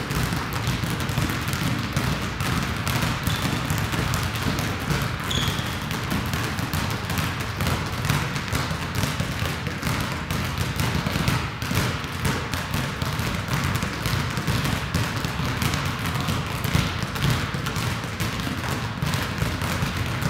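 Basketballs being dribbled on a gym court, the bounces overlapping in a dense, unbroken stream of thuds.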